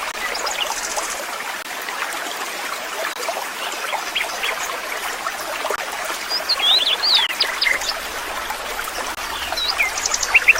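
Water trickling steadily, as from a small stream, with birds chirping over it: a quick cluster of chirps around seven seconds in and a few more near the end.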